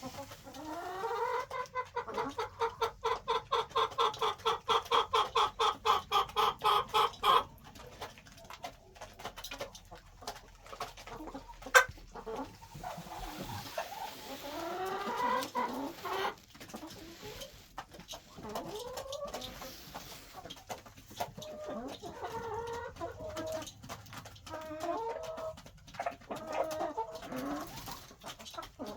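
Chickens clucking: a fast, loud run of repeated calls, about four or five a second, for the first seven seconds, then quieter scattered clucks and squawks, with one sharp knock about halfway through.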